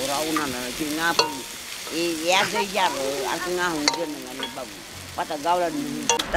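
Vegetables sizzling in a wok, with a metal ladle scraping and clinking against the wok and steel plates as they are stirred and served out. Voices are heard over it.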